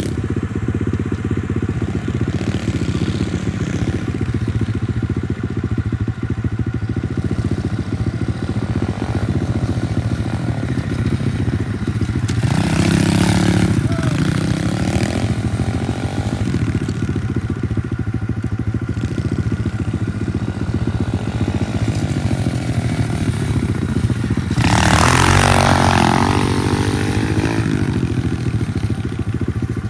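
Dirt bike engine running steadily, with two louder stretches where the revs rise and fall, about halfway through and again near the end.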